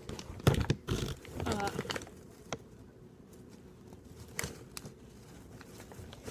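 Rustling and sharp clicks from handling close to the microphone, bunched in the first second or so with a few single ticks later, and a brief sound from her voice about a second and a half in.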